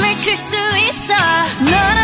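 Pop song with a voice singing over a backing track; a deep bass comes in near the end.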